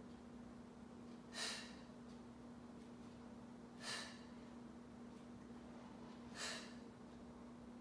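A woman's short, sharp breaths, three of them about two and a half seconds apart, one with each dumbbell deadlift repetition, over a faint steady hum.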